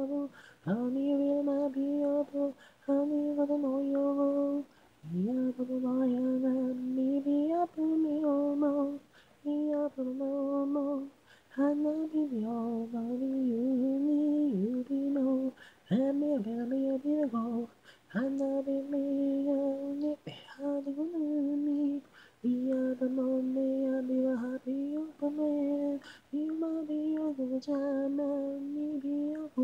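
Solo male vocal with no instruments, sung in Japanese in a fairly high register. The phrases run one to three seconds, with short breaks for breath between them.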